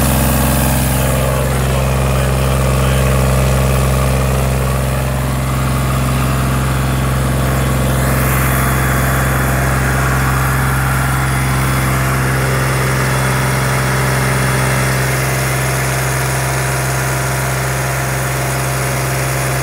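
Sonalika DI 35 tractor's diesel engine running steadily under heavy load, pulling through sandy soil: a new engine being run in at full load.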